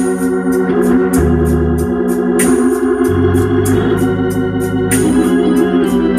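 Hammond organ playing held chords over a bass note that changes every second or so, with short, regular clicks on top.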